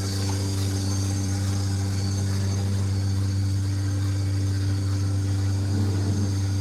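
Milking machine's vacuum pump motor running with a steady, even hum.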